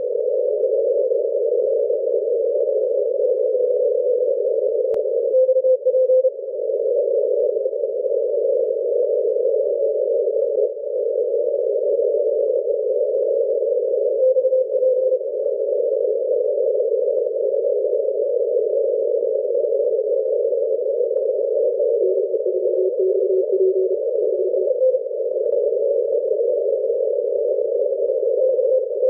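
Morse code (CW) pileup on the 40-metre amateur band heard through a software-defined radio receiver: many stations calling at once, their tones piled on top of each other in a narrow band of static. Now and then a single steady note stands out for about a second.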